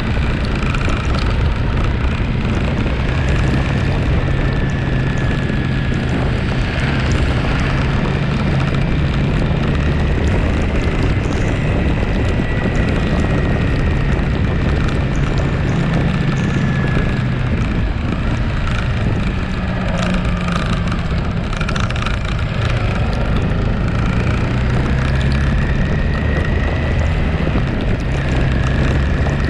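Motorcycle engine running at a steady cruise, with wind rushing over the microphone.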